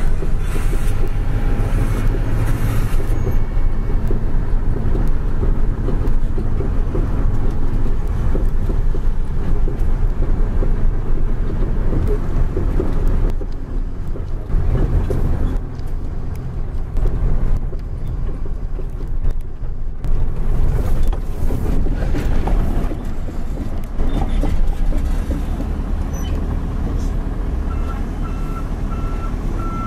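Heavy truck's diesel engine running with a steady low rumble as it hauls a loaded lowboy trailer at slow speed. Near the end a reversing alarm starts beeping at an even rhythm.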